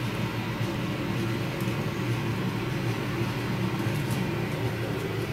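Steady low mechanical hum with a few faint ticks over it.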